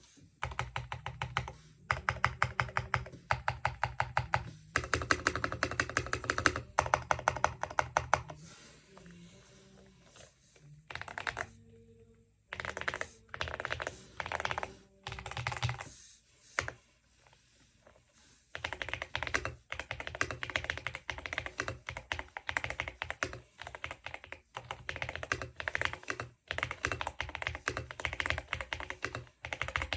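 Typing on a Womier SK71 mechanical keyboard: fast runs of keystrokes that clatter, broken twice by pauses of a few seconds.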